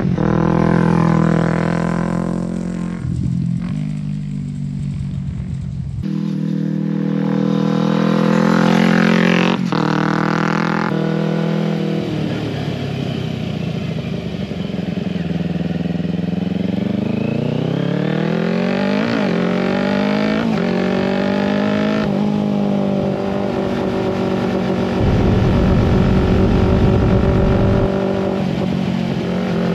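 A 2008 Kawasaki Ninja 250's parallel-twin engine on the move. It is first heard riding past, then up close while being ridden. The pitch climbs under acceleration and drops back at each gear change, with stretches of easing off where the pitch falls.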